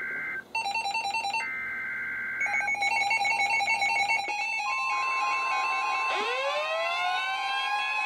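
NOAA Weather Radio SAME data bursts, a buzzy two-tone screech, coming through weather-alert receivers while the receivers set off their own beeping alarms between and after the bursts. About halfway through, the steady 1050 Hz Warning Alarm Tone begins, and a rising siren-like sweep joins about six seconds in. Together they mark the receivers activating for a High Wind Warning.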